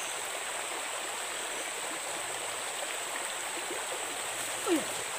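Steady rushing of a river running over a stony bed. Near the end there is one short falling sound.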